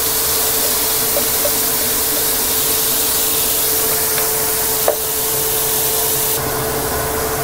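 Shredded young papaya sizzling steadily in a hot wok, over a steady low hum. One short click about five seconds in, and the hiss eases slightly near the end.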